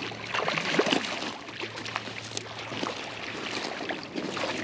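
Water splashing and lapping, with scattered light knocks and a low steady hum that drops out for a while in the middle.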